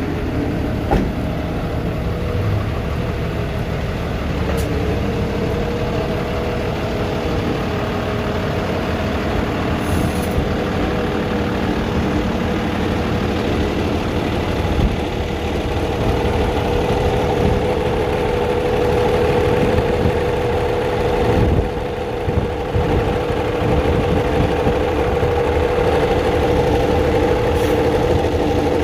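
Freightliner flatbed tow truck's diesel engine idling with a steady hum, a little louder in the second half.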